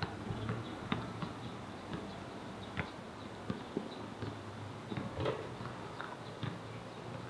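Irregular sharp taps and clicks of footsteps on hard pavement, a few to the second, over a low steady hum.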